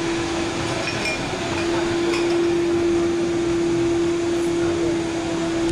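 A machine with an electric motor runs steadily: a constant hum at one pitch over an even whooshing whirr.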